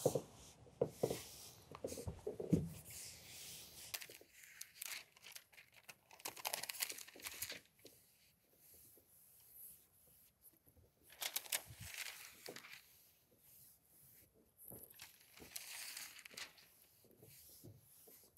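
Hand seam roller worked along a freshly taped EPDM rubber roof seam, giving faint, irregular scraping and rustling, with crinkling from the loose plastic release liner and a few soft knocks in the first few seconds.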